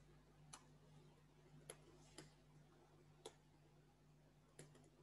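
Faint, sparse computer keyboard keystrokes: about half a dozen separate clicks as a word is typed, over a low steady hum.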